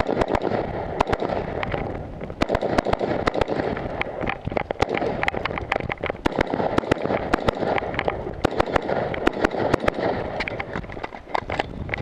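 Semi-automatic rifle fire during a timed 3-gun stage: a long string of sharp shots, several a second, some in quick pairs and clusters.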